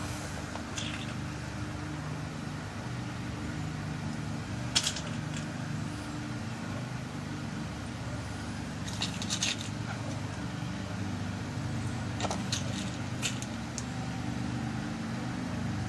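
Small metal lock pins being loaded one by one into a lock cylinder during a rekey, giving a few faint scattered clicks, over a steady low hum that is the loudest sound.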